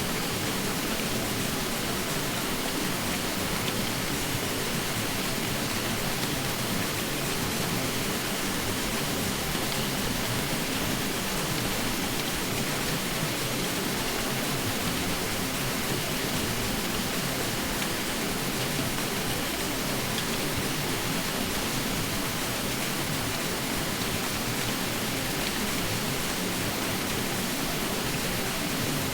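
Ceiling fan running steadily: an even, unchanging rushing hiss, brighter in the upper range than in the low end.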